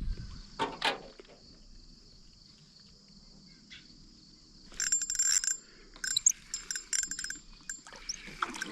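Steady high-pitched insect chorus of crickets. A couple of clicks come about a second in, and rustling and clicking of handling follows from about five to eight seconds in.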